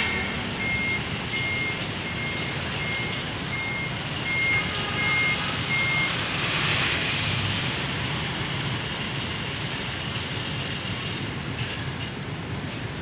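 Vehicle reversing alarm beeping, one high tone repeated about one and a half times a second, stopping about six seconds in. Steady street traffic noise runs underneath and swells briefly around seven seconds in.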